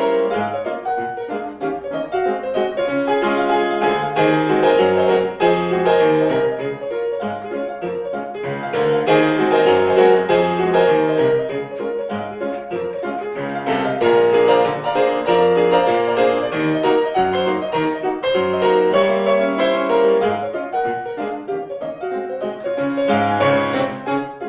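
Background piano music, a continuous solo piece with busy, flowing notes.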